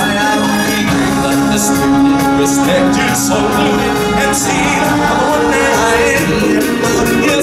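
Music from a live stage show, with a group of voices singing over it, picked up from the audience seats.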